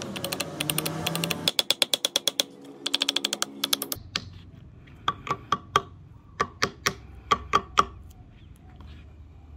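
Hand-tool workshop sounds: a fast run of light clicks or taps. Then, after a change of scene, a string of separate sharp taps a few to the second, each with a short metallic ring.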